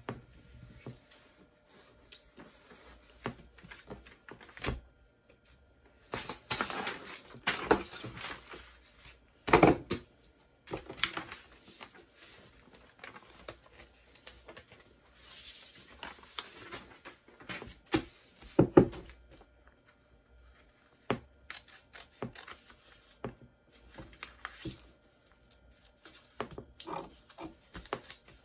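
Sublimation transfer paper rustling and crinkling as it is handled and trimmed, in short irregular bursts with small clicks between, and scissors cutting near the end.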